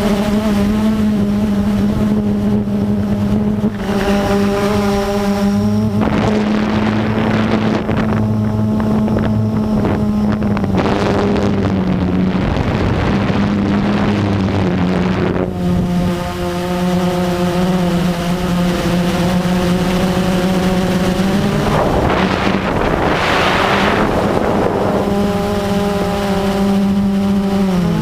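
Blade 350QX quadcopter's brushless motors and propellers humming steadily in flight, with a nearly constant pitch. Wind rushes over the onboard microphone in several gusts.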